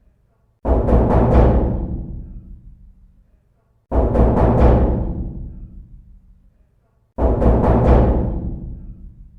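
Knocking on a door: three quick runs of about four knocks, each run followed by a long echoing fade, repeating about every three seconds.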